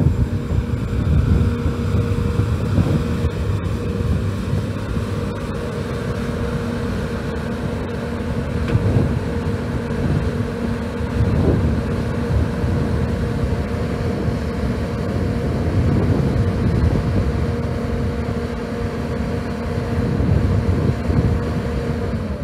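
2012 Kobelco SK210 hydraulic excavator running steadily, its diesel engine rumbling under a steady whine, with wind buffeting the microphone.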